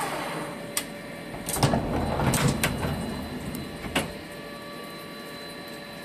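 CNC lathe's sliding guard door being opened, with a cluster of clunks and knocks about a second and a half to three seconds in and a single click about four seconds in, over a steady faint machine hum.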